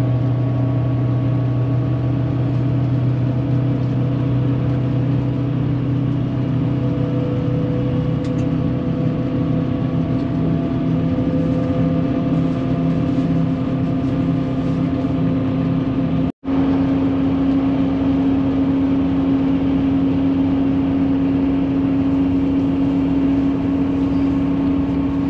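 Steady drone of a bus engine and tyre noise heard from inside the moving bus. It breaks off for an instant about sixteen seconds in.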